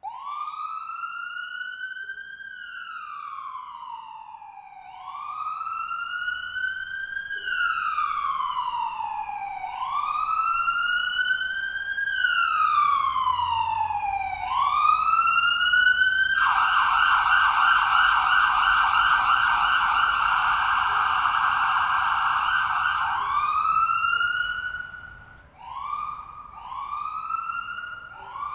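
Police car siren. It starts in a slow wail, rising and falling about every two and a half seconds. About two-thirds of the way through it switches to a loud, rapid warbling yelp. Near the end it goes back to shorter, quicker sweeps.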